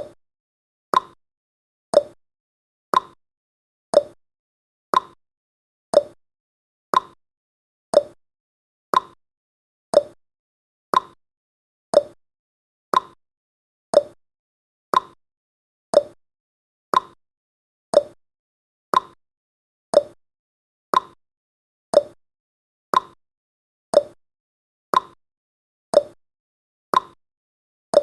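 Countdown timer's ticking sound effect: one short, sharp tick every second, evenly spaced, with silence between the ticks.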